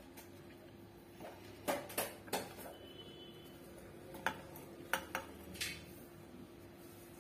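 Stainless-steel plate and small steel mixer jar clinking and knocking as ingredients are scooped by hand from the plate into the jar: a handful of short sharp taps in two clusters, a couple of seconds apart.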